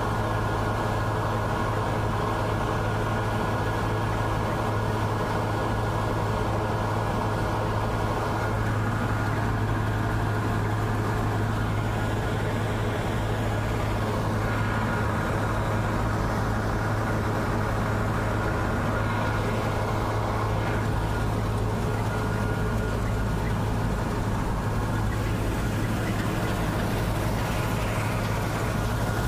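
Bizon Z056 combine harvester at work: its six-cylinder diesel engine and threshing machinery run with a steady, even hum, heard close up from on board the machine.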